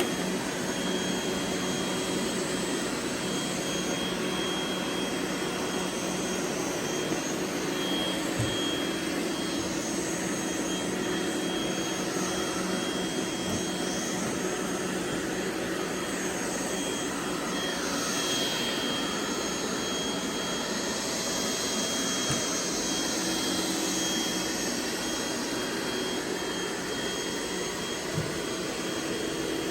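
Several robot vacuum cleaners running together on carpet: a steady whir with a thin high whine, broken by a few faint knocks.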